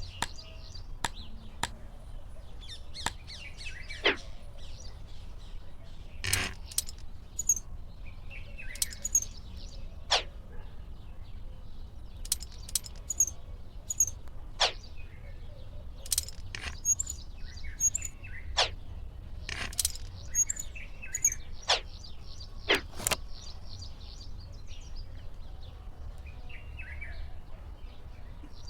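Birds chirping on and off, with scattered sharp clicks and knocks over a steady low rumble.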